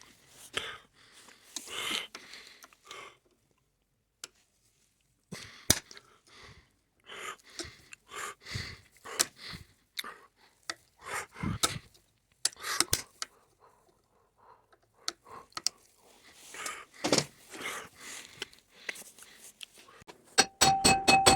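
Scattered clicks, knocks and rustles of hands handling tools and parts, with a short stretch of rapid ticking and a steady beeping tone near the end.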